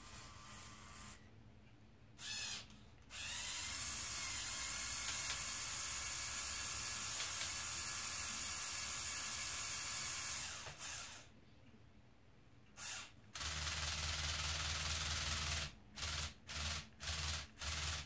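Small Lego Technic electric motors whirring through their gearing as the RC hooklift's arm swings and folds down. There is one long steady run of several seconds, a shorter run with a deeper hum, and near the end a series of short on-off bursts as the arm is nudged into place.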